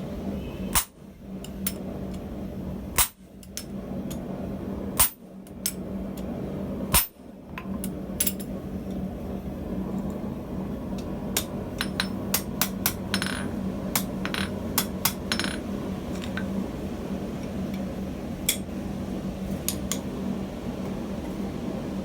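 Mild-steel hand hammer striking a hardened top tool on hot steel: four heavy blows about two seconds apart, followed by a run of lighter metallic taps and clinks, over a steady low hum.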